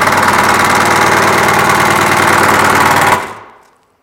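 Cordless impact driver hammering a screw through the cabinet side into a fridge gable panel: a steady, rapid rattle that stops about three seconds in.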